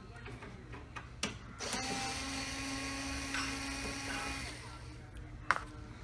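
Electric screwdriver running steadily for about three seconds, backing a screw out of a TV's plastic back panel, with a few sharp clicks before and after.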